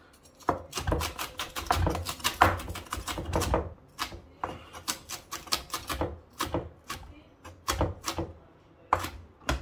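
Cleaver-style kitchen knife slicing a small green pepper on a plastic cutting board: a quick run of knife taps against the board for about three seconds, then slower, evenly spaced taps.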